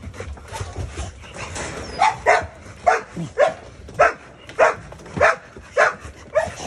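American Bully dog barking repeatedly: about nine sharp barks a little over half a second apart, starting about two seconds in.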